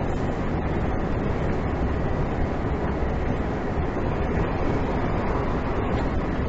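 Steady road and engine noise inside a vehicle cruising at motorway speed, an even rumble without changes.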